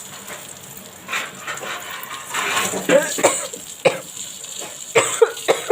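Green chillies frying in hot oil with a steady hiss, a metal spatula clinking against the pan several times, and short coughs from the chilli fumes in the second half.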